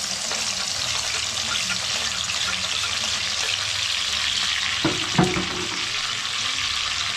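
Food sizzling steadily in hot oil in a pan, with a couple of knocks of a spoon against the pan about five seconds in.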